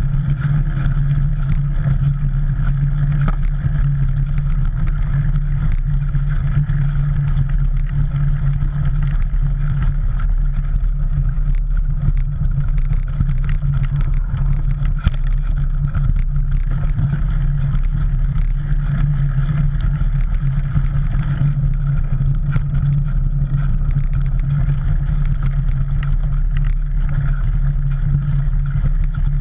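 Mountain bike riding on a dirt trail, heard from a camera mounted on the bike: a loud, steady rumble of tyres and wind on the microphone, with scattered clicks and rattles from gravel and the bike.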